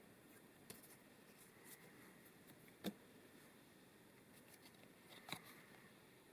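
Near silence, broken by a few faint clicks and rustles of trading cards being handled and flipped, the sharpest one just under three seconds in.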